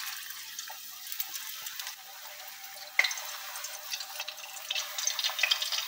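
Besan-battered spinach leaves frying in hot oil in a pan: a steady sizzling hiss full of small crackles and pops, with one sharper click about three seconds in.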